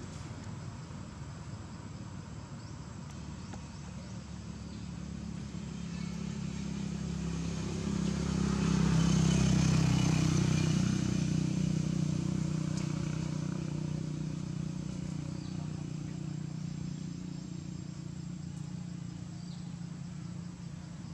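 A motor vehicle engine passing by, its low hum swelling to its loudest about nine seconds in and then slowly fading.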